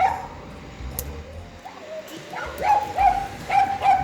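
Small dog yipping and whining in short, high, steady-pitched yips, with a quick run of four in the second half.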